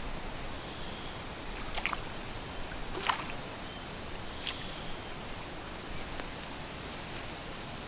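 Several short splashes as a hooked crucian carp thrashes at the surface while being played on a float rod, over a steady background hiss.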